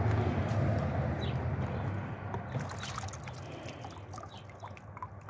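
Water sloshing and splashing in a plastic tub as a red amethyst cluster is swished through it to rinse it. The sloshing is strongest at first and eases off, leaving scattered drips and trickles.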